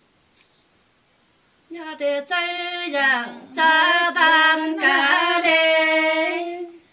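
A woman singing unaccompanied, a verse of Nùng call-and-response (hát đối đáp) folk song: one voice comes in about two seconds in, moving through a few long held notes, and stops just before the end.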